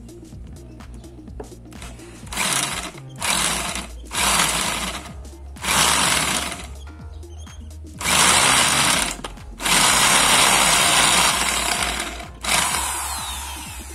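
Electric drill with a step drill bit boring out a bolt hole in a rusted steel motorcycle footrest bar, enlarging the hole so a bigger bolt fits. It runs in about seven bursts, starting about two seconds in, mostly a second or so each. The longest, near the end, lasts nearly three seconds.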